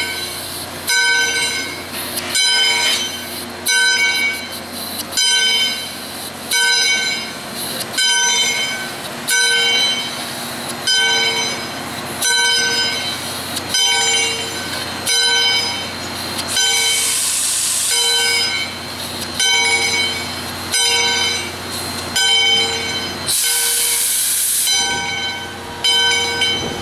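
Steam locomotive's brass bell swinging and ringing steadily, stroke after stroke at an even pace, each ring hanging on. Brief hisses come twice in the later part.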